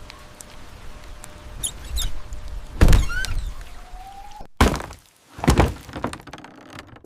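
Several heavy thuds, the loudest about three seconds in and two more shortly after, with a few short whistling glides; the sound cuts off sharply at the end.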